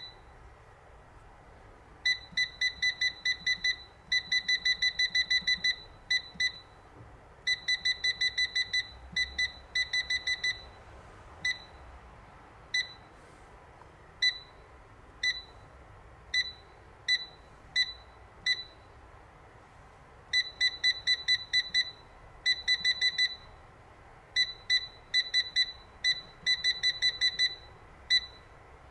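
Touch control panel of a Navplus AF-338 air fryer beeping as its buttons are pressed. It gives short high beeps, some single and some in fast runs of about five a second, as the temperature setting is stepped down.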